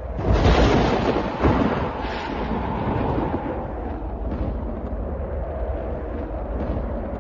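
A thunderclap that breaks in suddenly, with a second crack about a second later, then rolls on as a long low rumble that slowly fades.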